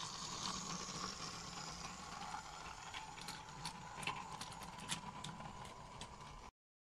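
G scale model Simplex locomotive running along garden railway track: a steady whine from its electric motor and gears, with irregular clicks of the wheels over the rail joints. The sound cuts off suddenly near the end.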